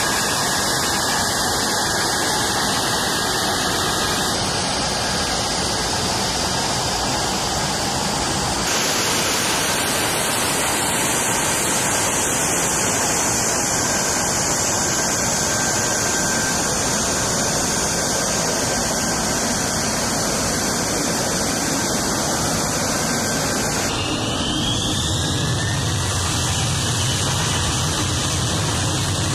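F-35B Lightning II's jet engine running at high power on a flight deck: a loud, steady rush of noise, with a high whine that slides down in pitch about ten seconds in. The sound changes abruptly a few times.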